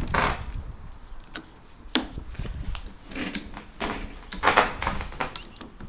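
Plastic lawn mower parts being handled and fitted together during assembly: scattered clicks and knocks with short bursts of rustling and scraping.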